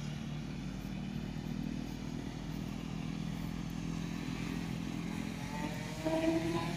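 A small engine running steadily, its pitch rising near the end as it speeds up.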